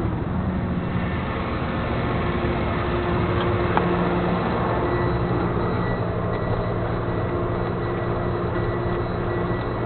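Flatbed tow truck's engine running steadily, with one brief click about four seconds in.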